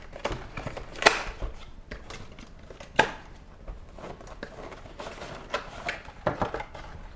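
Packaging of a computer mouse being opened and handled: rustling and crinkling of cardboard and plastic, with two sharp clicks, one about a second in and a louder one about three seconds in.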